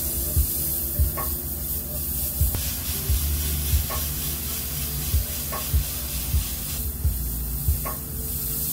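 Airbrush spraying paint with a steady hiss of air, over low thumps that come every half second to second.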